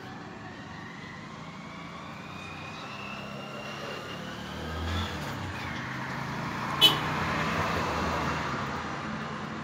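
A motor vehicle passing nearby, its engine note rising over several seconds and growing loudest in the second half before fading slightly. A single sharp click about seven seconds in.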